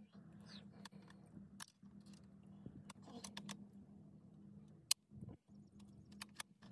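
Faint metal clicks and small rattles from a scoped bolt-action hunting rifle being handled, with one sharper, louder click about five seconds in.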